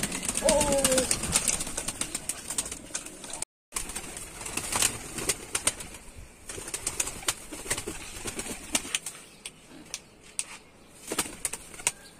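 Domestic pigeons flapping their wings and pecking grain from an open hand, making many sharp claps and clicks, with a short coo about half a second in.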